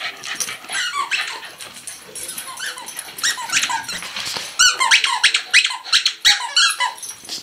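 A dog chewing a squeaky toy, squeaking it over and over in short pitched squeaks, speeding up to about four a second from roughly halfway in.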